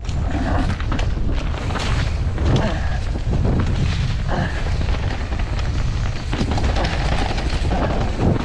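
Wind rumbling on the microphone and mountain bike tyres rolling fast over a dirt trail, with the bike clattering and rattling over bumps in many short knocks.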